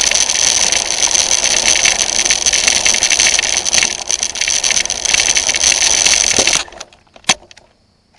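Electric RC car motor and drivetrain running with a steady high whine and rattle, then cutting off abruptly about six and a half seconds in; a single sharp click follows.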